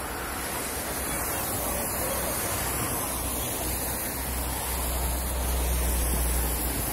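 Steady rushing noise of meltwater running in a roadside ditch during the spring thaw. A low rumble grows stronger in the second half.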